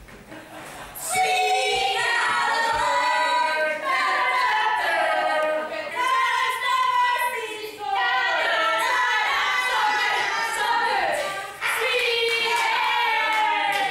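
A group of women singing together, starting about a second in, with a brief break near the end.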